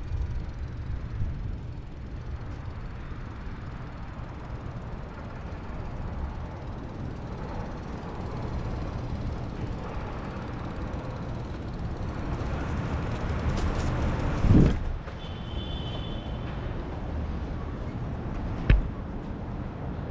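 Bicycle ride on city streets heard from a helmet-mounted camera: a steady low rumble of wind and road noise. About two-thirds of the way through there is a loud thump, then a brief high squeal, and near the end a single sharp knock.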